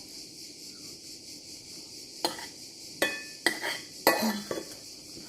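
Cutlery clinking and scraping against a plate while scooping food, four or five sharp clicks from about two seconds in, over a steady high hiss.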